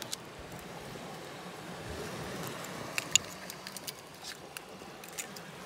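Small, sharp clicks of oyster shells being handled, scattered over a steady outdoor background noise.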